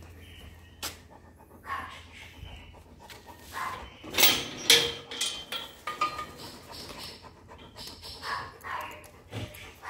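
Golden retriever panting in short breathy bursts, with a few louder noisy bursts about four to five seconds in.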